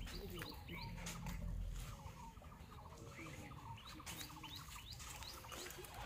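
Small birds chirping, many short quick calls sliding in pitch, over a low rumble during the first two seconds.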